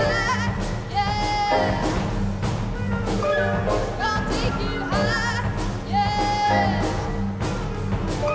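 Contemporary chamber ensemble playing with a soprano singing long held notes with wide vibrato, two of them about a second and six seconds in, over a steady low drone and regular percussive strikes.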